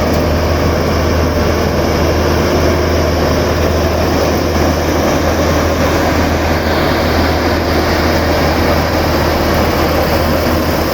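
Marksan half-feed combine harvester running steadily: a constant low engine hum under the loud, even noise of its working machinery.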